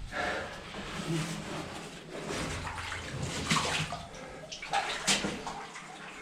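Water splashing and sloshing in a shallow cave stream, in uneven bursts like steps wading through it, the loudest about three and a half and five seconds in.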